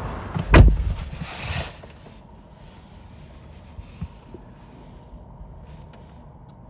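Land Rover Defender's door shut with one heavy thud about half a second in, followed by a moment of rustling, then the quiet cabin of the switched-off vehicle with a few faint clicks.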